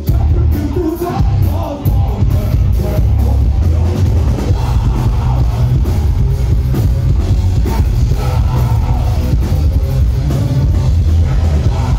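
A live rock band playing loudly: electric guitar, bass guitar and drum kit, with a heavy, booming low end.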